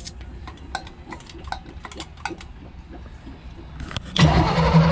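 Scattered light clicks and ticks, then about four seconds in the starter cranks the boat's 350 Chevy V8 again as it tries to fire on the Edelbrock carburetor.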